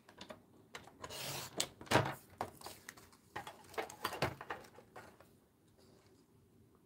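Sliding-blade paper trimmer cutting card stock: the cutting head scrapes along its rail for about half a second, then a sharp click about two seconds in, followed by more clicks and rustling as the card is shifted and lifted off the trimmer.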